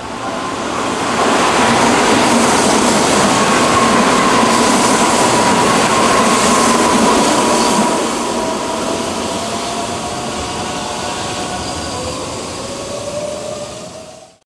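Keihan electric express train running through a station at speed: loud rushing wheel and rail noise with a steady high ringing tone, which eases off after about eight seconds. A rising whine comes in later, and the sound cuts off abruptly at the end.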